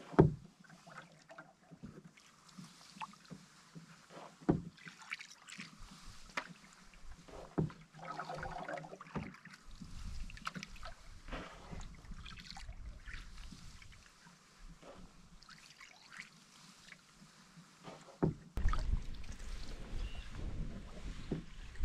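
Canoe paddling in a wooden canoe: quiet paddle strokes with water dripping and swishing off the blade, and scattered knocks of the paddle against the hull, the loudest a thump right at the start. From about 18 seconds in, a steadier rush of wind on the microphone over lapping water.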